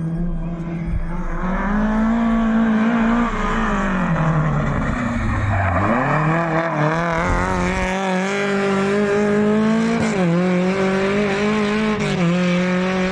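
Car engine held at high revs during a drift run, its pitch rising, then falling sharply about halfway through before climbing back, with two brief dips near the end as the throttle lifts. Tyres squeal under the sliding car.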